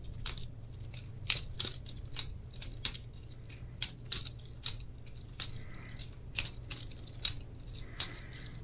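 Boker Plus balisong butterfly knife being flipped open and closed by hand, its handles and blade clacking together in sharp metallic clicks, irregular at about two or three a second.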